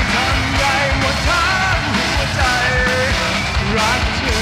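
Live rock band playing with drums, a male singer singing and yelling over it into a microphone.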